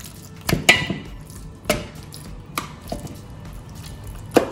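Pieces of marinated chicken being set down one by one in a cooking pot: about five irregular knocks, the sharpest near the end.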